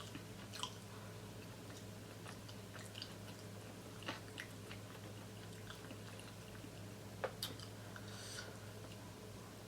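A person chewing a cheesesteak with the microphone close: faint, scattered wet mouth clicks and smacks a few seconds apart, with a short hiss near the end.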